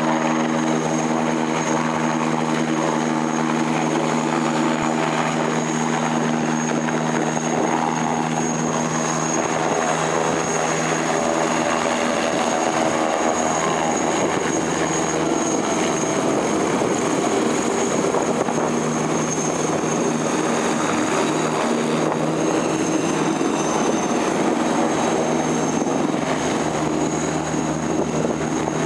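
Eurocopter Tiger attack helicopter flying low and hovering, its main rotor and twin turboshaft engines running steadily, with a constant high turbine whine over the rotor noise.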